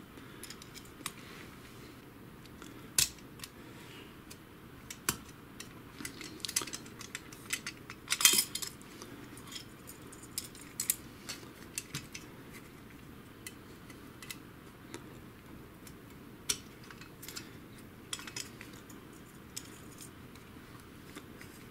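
Scattered plastic clicks and clatters as the printer's black plastic roller holders are unclipped from the metal frame and set down on a table, with the loudest clatter about eight seconds in.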